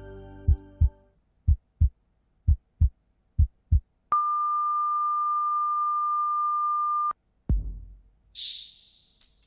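Sound-effect heartbeat: pairs of low thumps (lub-dub) about once a second, as the last notes of music fade. The beating stops and a heart monitor's flatline tone sounds, one steady beep held for about three seconds, signalling that the heart has stopped. A low thud and a short high chirp follow near the end.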